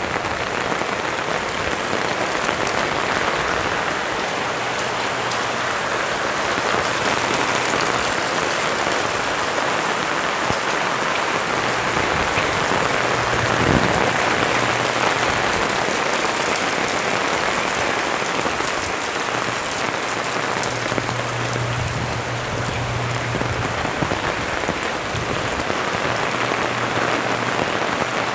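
Steady rain falling and splashing on surfaces, with a low hum that fades in and out several times.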